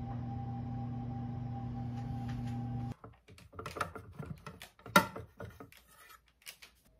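A steady electrical hum that cuts off abruptly about three seconds in. After it come light clatter and knocks from a metal offset spatula handled around a sponge cake on a cake turntable, with one sharp knock about five seconds in.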